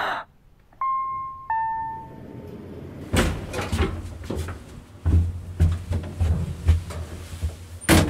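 Lift chime: two electronic notes, the second lower, about a second in. From about three seconds on comes a low hum with irregular knocks and clunks of the lift and its sliding doors.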